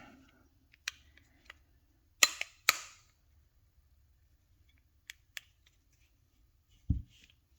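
Plastic key fob shell parts clicking and snapping as they are fitted and pressed together: two loud snaps a little after two seconds, lighter clicks before and after, and a dull knock near the end.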